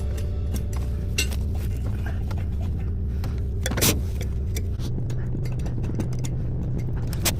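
Metal awl scraping and clicking in the threads of an electrical service mast as the threads are cleaned, in irregular short strokes, the loudest a little under four seconds in. A steady low rumble runs underneath.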